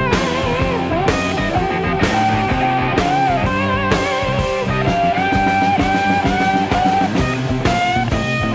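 A 1970s rock song playing in an instrumental passage: electric guitar lines with bends and vibrato over bass and drums.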